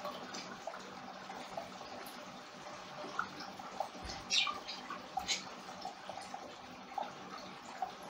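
Faint handling noise of a fibre-optic fast connector: scattered small plastic clicks and ticks as the fibre is pushed in, over a steady background hiss. The clearest clicks come in a short cluster a little past halfway, with a soft low thump just before it.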